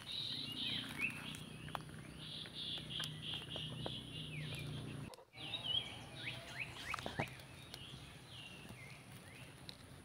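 Outdoor chorus of birds chirping in short falling calls over a steady high insect drone, with a few sharp clicks and leaf rustles as a hand moves through the foliage.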